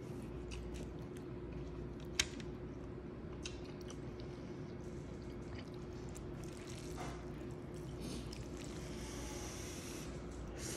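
Quiet eating sounds: chopsticks clicking against the dumplings, plate and noodle bowls, with a sharper click about two seconds in, and chewing, over a steady low hum.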